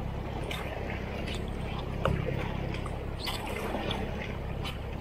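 Water splashing and rushing around a racing kayak as it is paddled through a motor boat's wake, with several short paddle splashes and a brief thump about two seconds in, over a steady low drone from the boat's engine close ahead.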